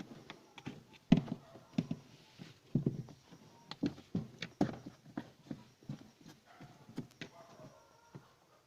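Irregular clicks and knocks of fridge parts being handled and fastened back into place by hand, some strikes louder than others.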